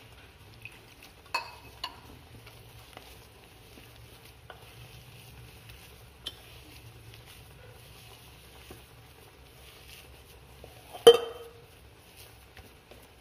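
Rice-flour dough being kneaded by hand in a stainless steel bowl: soft rubbing and squishing, with a few light clicks against the bowl and one sharp metallic clank with a brief ring about eleven seconds in.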